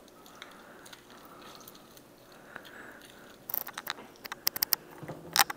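Raw chicken drumsticks being worked by hand in lemon juice: after a quiet stretch, a run of quick wet squelches and clicks starts about three and a half seconds in.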